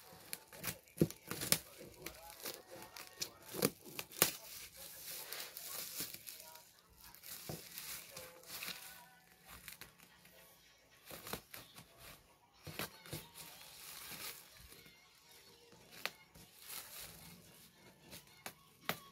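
Scissors snipping through plastic bubble-wrap packaging, a run of sharp snips in the first few seconds. Then the bubble wrap crinkles and tears as it is pulled open by hand.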